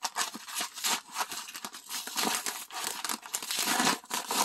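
A paper mailer bag being torn open by hand, its stiff paper crinkling and rustling in quick, irregular crackles.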